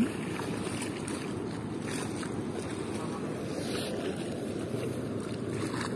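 Steady low rush of choppy river water lapping against a concrete embankment, mixed with wind on the microphone.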